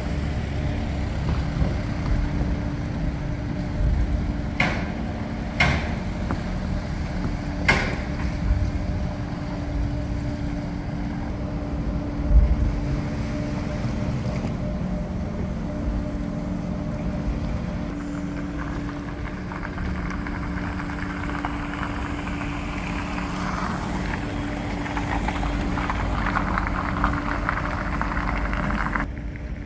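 Docked car ferry and vehicles at its steel loading ramp: a steady low rumble with an even engine hum, three sharp clanks in the first eight seconds and a heavier thump about twelve seconds in, then a broad hiss of vehicle noise swelling over the last ten seconds as cars roll off.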